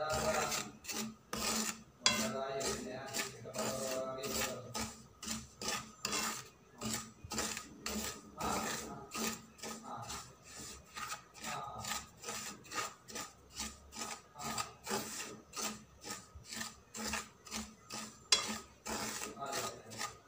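A wooden spoon scraping and stirring dry semolina and sesame seeds in a frying pan in quick, rhythmic strokes. The grain is being dry-roasted on low heat for rulan aluwa.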